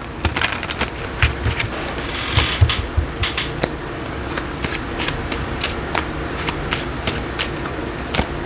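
A deck of tarot cards shuffled by hand: a steady run of irregular card clicks and flicks, with a few soft low thumps in the first few seconds.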